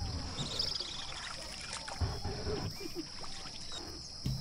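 A paper-thin sheet of yufka pastry dough being handled and spread on a wooden board: soft thumps and rustles, three times, as the dough is laid down. Faint bird chirps and a quick rising trill sound in the background.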